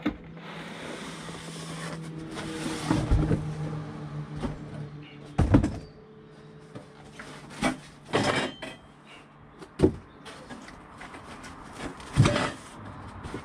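Cardboard box and white foam packing being handled as a diesel heater is lifted out and unwrapped, with scraping and rustling. Several sharp knocks follow as the heater and foam pieces are set down on the plywood van floor.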